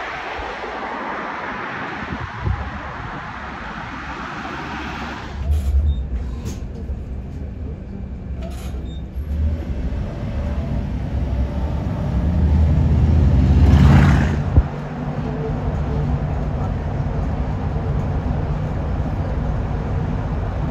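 Street traffic, then a motor vehicle's engine that comes in about a quarter of the way through and grows louder to a peak about two-thirds through. After the peak it settles into a steady low run.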